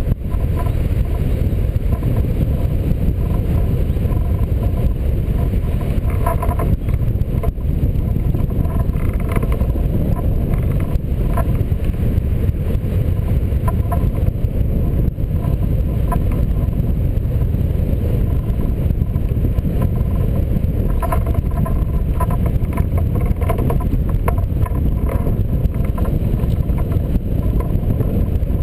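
Wind rushing over the camera microphone on a hang glider in flight: a loud, steady low rumble of airflow.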